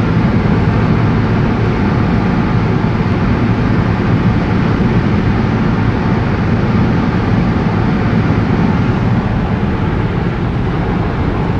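Steady road noise inside a car's cabin at highway speed: even tyre and engine noise with no change in pace.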